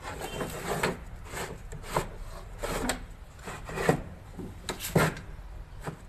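Sheet-metal parts of a window air conditioner knocking and scraping as the control board bracket is slid and pressed back into the chassis: a string of irregular knocks with rubbing between them, the sharpest about four and five seconds in.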